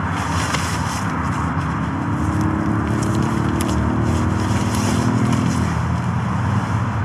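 Steady motorway and roundabout traffic, with one vehicle's engine passing louder from about a second and a half in until near six seconds. Close by, scraping and rustling as the tent fabric and a backpack are handled, with a few sharp clicks.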